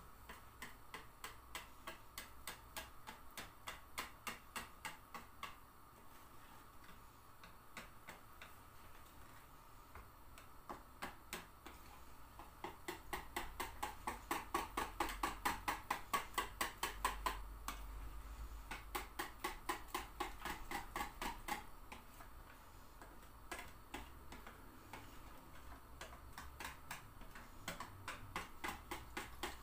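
Wire whisk beating a flour-and-egg batter in a plastic container, a fast, even clicking of the wires against the tub at several strokes a second. It grows louder in the middle stretch, then eases off.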